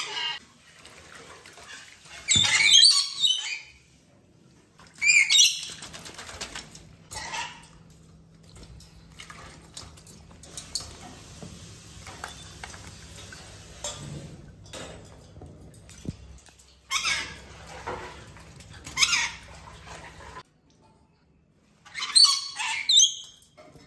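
Wet red-collared lorikeet flapping and shaking its wings at its bath, in about six short loud bursts.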